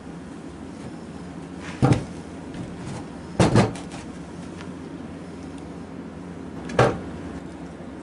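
Sharp wooden knocks from a hinged southern yellow pine box: its lid is shut and the box is handled on a wooden workbench. There is one knock about two seconds in, a quick pair about halfway, and one more near the end.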